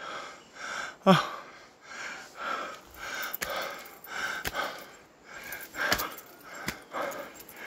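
A man panting hard, quick heavy breaths about two a second, out of breath from a long trail hike, with one short voiced gasp about a second in. A few sharp clicks.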